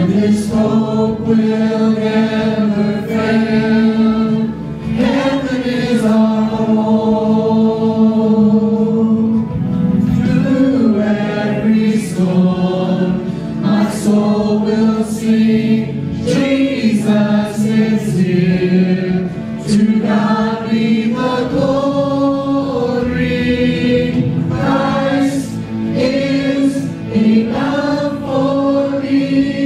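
A group of voices singing a gospel song together, holding long notes that change every second or two.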